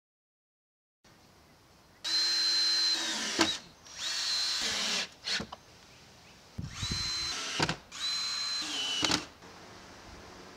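Cordless drill-driver driving screws through fiber cement siding planks, in four short runs of about a second each. The motor whine holds a steady pitch in each run and dips just before the last one stops.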